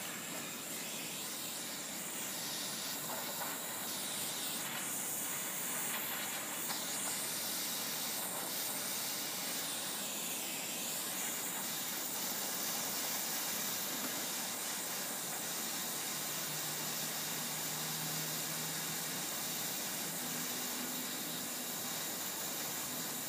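Propane torch burning with a steady hiss while it heats a fluxed copper joint for soldering.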